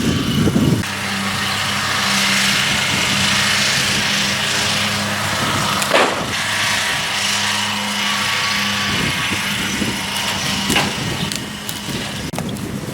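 Vehicle engine running at a steady speed, likely the vehicle being brought round to pull the trailer, its hum weakening near the end. A couple of sharp knocks are heard.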